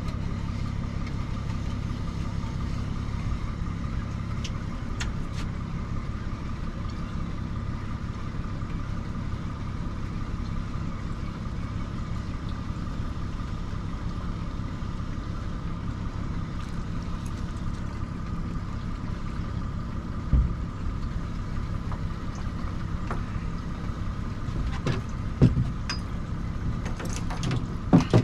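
Boat's outboard motor running steadily at low trolling speed. A few short knocks sound in the last third.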